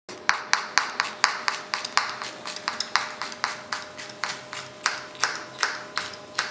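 Kitchen knife chopping a red chili pepper on a cutting board, in even strokes about four a second, over a faint steady hum.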